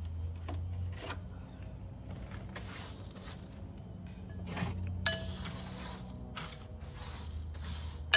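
Pots and repotting materials being handled and set down on a hard surface: scattered knocks and rustles, with two sharp clinks that ring briefly, about five seconds in and again near the end.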